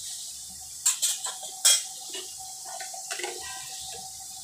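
Vegetables sizzling in oil in an iron kadai, with about four sharp metal clinks of kitchenware, the loudest about a second and a half in.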